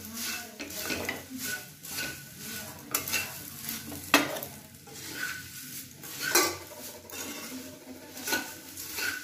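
A spatula stirring and tossing puffed rice around a small nonstick kadai, scraping and knocking against the pan, as the rice is dry-roasted in a little oil until crisp. Sharp knocks stand out about three, four and six and a half seconds in.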